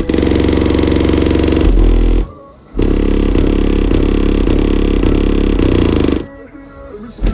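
Six Sundown ZV5 18-inch subwoofers in a fourth-order box playing loud, steady bass notes. The bass cuts out briefly about two seconds in and again near the end.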